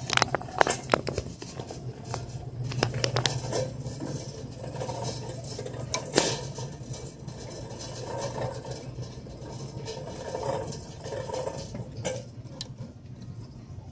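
Metal shopping cart rolling across a smooth store floor over a steady low rumble, its wire frame rattling with scattered clicks and clanks, the loudest near the start and about six seconds in.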